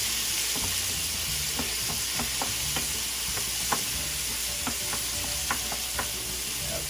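Minced garlic and onion sizzling steadily in oil in a stainless steel pan while a wooden spoon stirs them, knocking against the pan now and then.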